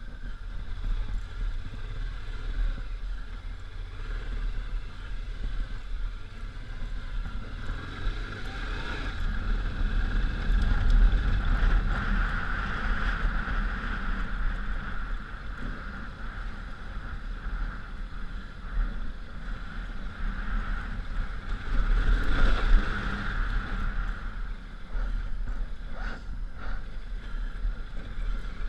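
1999 Honda Africa Twin's V-twin engine running under way on dirt trails, with a steady low rumble. It rises louder twice, about a third of the way in and again past three-quarters, as the throttle is opened.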